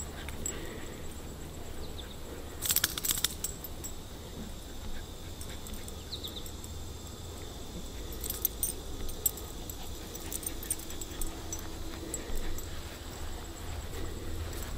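Short bursts of light metallic jingling, loudest about three seconds in and again around eight to nine seconds, with a few smaller jingles near twelve seconds, over a steady low rumble.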